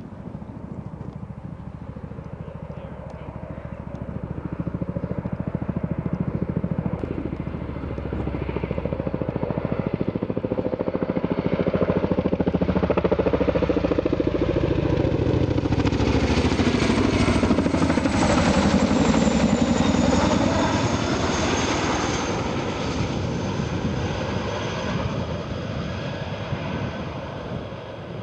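CH-47 Chinook tandem-rotor helicopter approaching, passing low close by and flying away. The fast chopping of its rotor blades builds to its loudest in the middle of the pass. As it goes by, the pitch of the rotors and the high turbine whine drop, and the sound then fades slowly.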